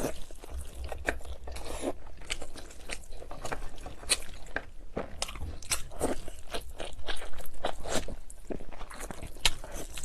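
A person eating close to the microphone: irregular crunchy bites and wet chewing that go on throughout.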